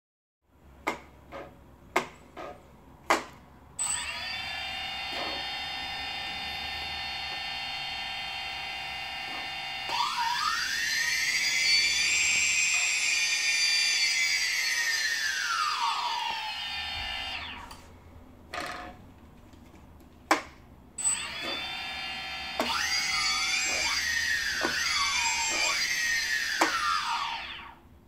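A few sharp clicks, then the brushless motors of a DJI Phantom Vision 2+ quadcopter, spinning with no propellers, start up with a high whine. The whine holds steady for several seconds, then rises in pitch and falls back; later it swoops up and down several times more quickly. The motors are answering the remote oddly after a calibration.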